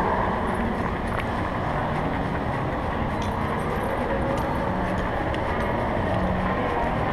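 Steady rumbling noise from a body-worn camera as the handler walks the dog, with faint light clinks of the dog's chain leash now and then.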